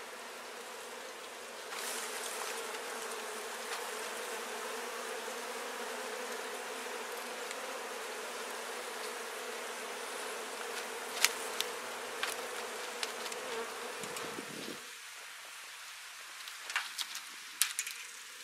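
A honeybee colony buzzing in a steady hum, growing louder about two seconds in and dropping away about fifteen seconds in. A few sharp clicks and knocks come near the end.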